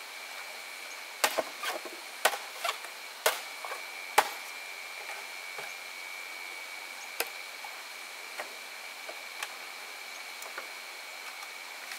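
Sharp wooden knocks of hand work on wood, a quick irregular cluster of about seven in the first four seconds, then a few single knocks spaced out. Under them runs a steady high-pitched tone.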